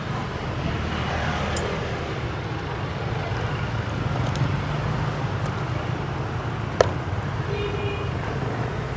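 Street traffic noise: a steady low rumble of passing vehicles, with one sharp click about seven seconds in.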